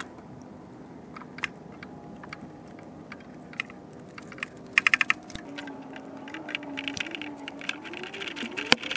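Hand ratchet on a long socket extension clicking as it runs in the bolts of a new thermostat housing: scattered clicks, a quick run of about five loud ones around the middle, then lighter, faster clicking and one sharp click near the end.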